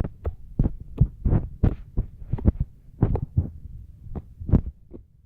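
Fingers poking and squishing slime: a run of soft, irregular squelchy thumps, about three a second.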